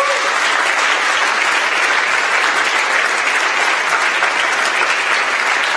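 A large audience applauding, steady sustained clapping with no let-up.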